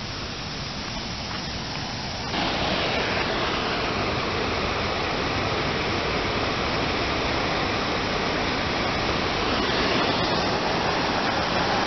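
Water rushing steadily over a dam spillway weir. It jumps louder about two seconds in, then holds steady.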